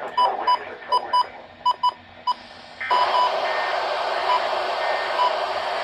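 NOAA Weather Radio Emergency Alert System broadcast through a radio receiver's speaker. First come choppy, broken-up tone beeps that cut in and out, about seven of them. Then, about three seconds in, a steady, harsh buzzing data burst starts: the glitched SAME header of a weekly test.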